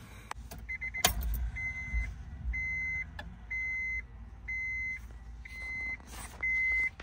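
Acura Integra's electronic dashboard warning chime beeping at a steady pitch, about six evenly spaced beeps roughly a second apart, after a click near the start, as the ignition is switched on.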